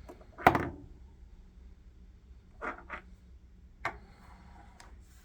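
Ammunition boxes and shells being handled and set down: one loud knock about half a second in, two quick softer knocks near the middle, and one sharp tap shortly after.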